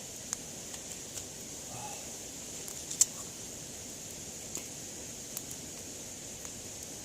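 Wood campfire crackling: scattered sharp pops from the burning wood, one much louder snap about three seconds in, over a steady high hiss.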